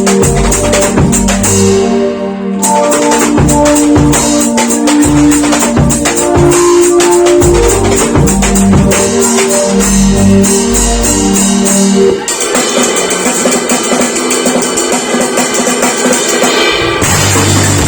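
Drum kit played along with a music track that carries a bass line and melody notes. About twelve seconds in the low bass drops out and the texture thins. Near the end a heavy low bass comes back in.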